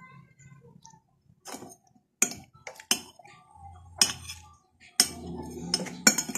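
Metal spoon clinking and scraping against a bowl while eating: several sharp clinks at uneven intervals.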